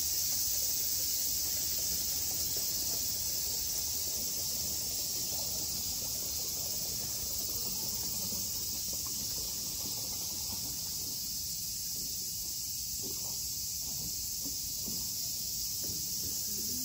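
A chorus of summer cicadas droning steadily in the trees, a dense, high-pitched hiss.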